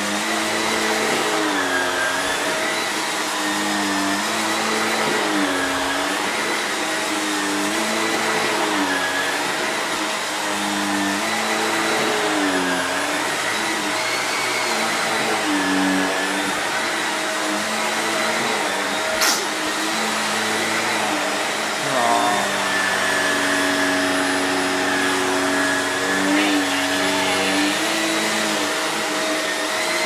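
A steady electric motor runs with a loud whooshing air noise and a constant hum. Its pitch dips and rises about every two seconds. There is one sharp click about two-thirds of the way through.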